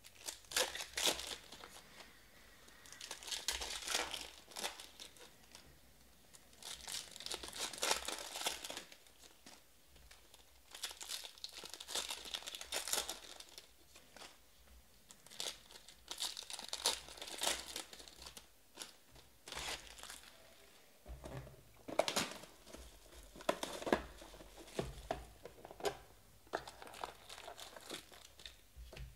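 Trading-card pack wrappers crinkling and tearing as packs of 2019 Panini Elite Extra Edition are ripped open by hand, in bursts every few seconds.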